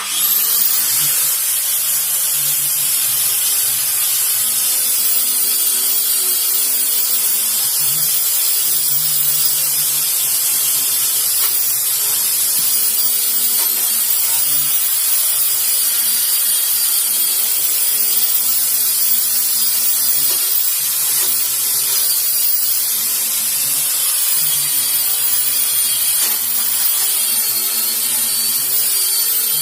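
Electric sander switched on, its motor whine rising within the first second and then running steadily, with a continuous abrasive rasp of sandpaper on wood.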